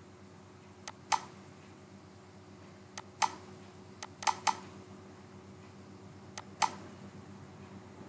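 Computer mouse clicking: four short bursts of clicks, mostly press-and-release pairs about a quarter second apart, over a faint steady hum.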